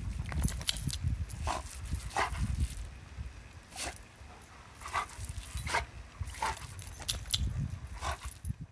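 A dog biting at the spray of an oscillating lawn sprinkler, giving about eight short, sharp yaps spread across a few seconds over a low rumble.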